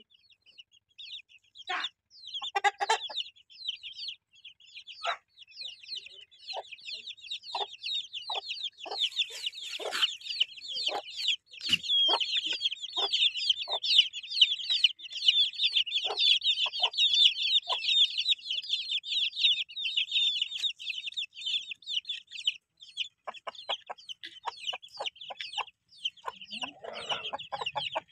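A brood of Aseel chicks peeping continuously in rapid, high chirps, with scattered short clicks and a lower clucking near the end.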